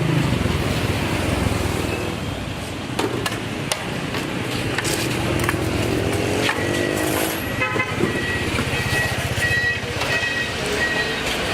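Road traffic: motor vehicle engines running and passing, one revving up around the middle, with repeated short electronic beeps in the second half.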